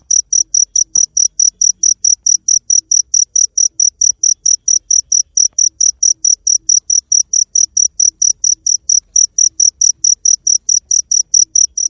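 Cricket chirping in a fast, perfectly even rhythm of about five short, high-pitched chirps a second.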